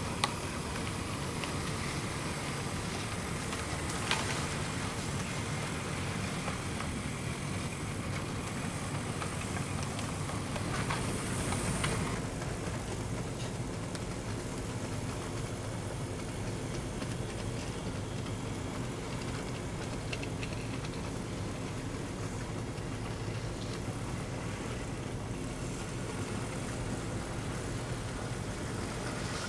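HO-scale model diesel locomotive running on the layout, giving a steady engine-like hum with a few pitched tones. Sharp clicks come just after the start and about four seconds in.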